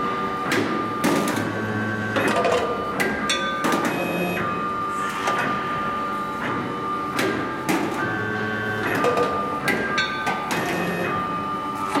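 Large-gauge battery cable cutting and stripping machine at work. Short spells of motor whine as the belt-track feed rollers move the cable alternate with repeated clicks and knocks from the cutter head, over a steady high tone.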